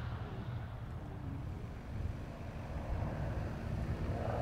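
Extra 300L aerobatic plane's six-cylinder Lycoming engine and propeller heard from a distance as a low, steady rumble, growing somewhat louder about three seconds in.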